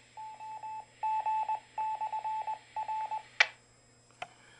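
Repeater's Morse code call-sign identification heard through the Baofeng UV-5RE handheld radio's speaker: a steady beeping tone keyed in dots and dashes. It ends about three and a half seconds in with a short, sharp crackle, and a faint click comes a little later.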